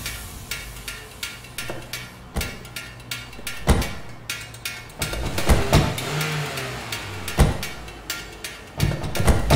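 Improvised percussion on oil-change shop equipment: plastic trash cans, buckets and an oil drain pan struck by hand and with tools. Sharp, irregularly spaced hits a second or so apart, some in quick pairs.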